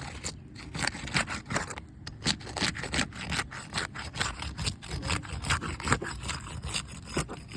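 Roof snake being worked back and forth under asphalt three-tab shingles, a quick, irregular run of scraping, rasping strokes as it breaks the shingles' sealant strips so the nails can be pulled.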